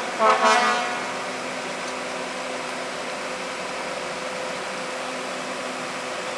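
Horn of an Alerce diesel railcar sounding a short blast just after the start, the second of a pair, then a steady even rushing noise with a faint hum as the railcar crosses the bridge.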